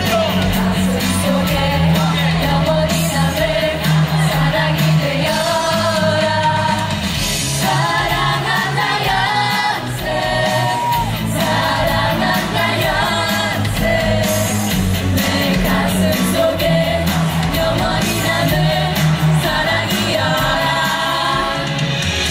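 Amplified pop music with singing over a steady bass beat, and a crowd shouting and whooping along.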